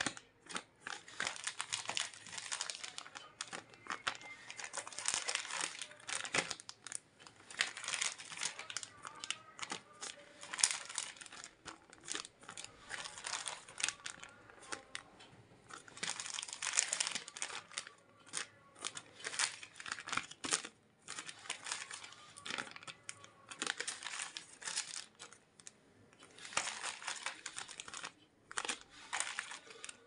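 Thin clear plastic bags holding aquarium plant cuttings crinkling as hands pick them up, turn them over and press on them. The crackle comes in uneven spells with short pauses between.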